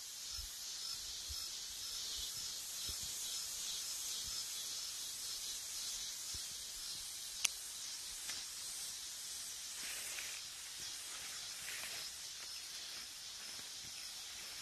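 Cicada singing: a steady, high-pitched buzz, with one sharp click about halfway through.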